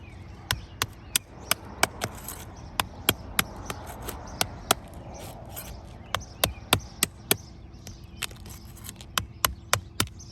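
Irregular sharp taps and clicks, about two or three a second and some in quick pairs, of a thin roofing tool being worked against brittle architectural asphalt shingles to break their seal strips.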